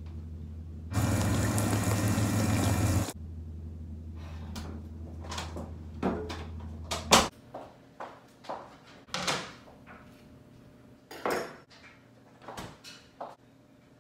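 A low steady hum with a two-second burst of rushing noise about a second in, then a string of short knocks, clunks and clatters, the loudest about seven seconds in: doors, a refrigerator and kitchen things being handled and set down on a counter.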